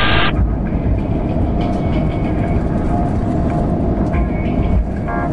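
Inside the cabin of an Airbus A350-900 on its landing rollout: a loud, steady rumble of the wheels on the runway mixed with the noise of its Rolls-Royce Trent XWB engines.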